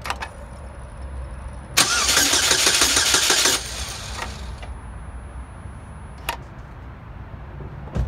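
Starter cranking the 2006 Chevy Cobalt's 2.2 L Ecotec engine for about two seconds, a loud rapid whirring. The injectors are pulled out of the intake and facing up, so the engine does not fire. A click comes at the start and another about six seconds in, with a faint high whine between them.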